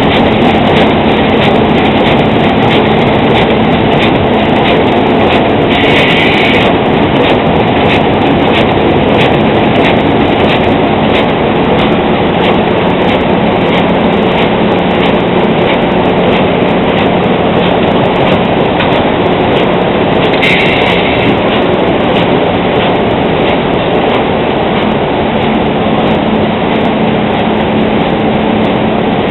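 A Müller Martini wire saddle stitcher and its Rima stacker running in production: steady, loud mechanical clatter with a regular click and a low hum. Two short hisses sound, about six seconds in and again near twenty seconds.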